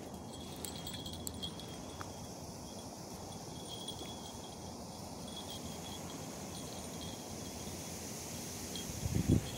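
Insects chirping with a thin, high, steady trill that comes and goes, over an outdoor background hiss and low rumble. A few louder low rumbles break in near the end.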